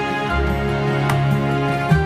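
Background music: sustained chords over a bass line that changes every half second or so, with light percussion ticks.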